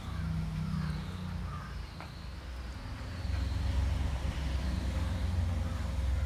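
A low, steady rumble that gets louder about three seconds in.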